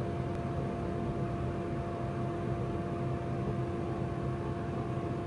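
A steady machine hum with two held tones over a soft hiss, without a break or any distinct knock or click.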